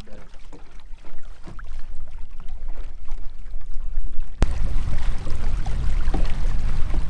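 Wind rumbling on the microphone and choppy water slapping around a small fishing boat. About four seconds in, the noise jumps suddenly louder and fuller.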